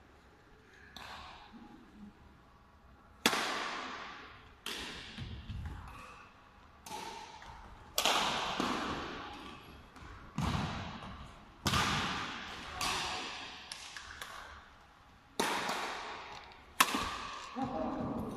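Badminton rackets striking a shuttlecock in a rally, about a dozen sharp smacks roughly once a second, each ringing on in the echo of a large sports hall.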